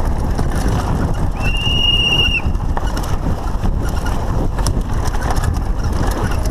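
Lapierre Spicy 516 full-suspension mountain bike descending a dirt downhill track at speed: a constant loud rumble of wind and tyres with clicking rattles from the bike over bumps. A single high, steady whistle-like tone lasts about a second, starting about one and a half seconds in.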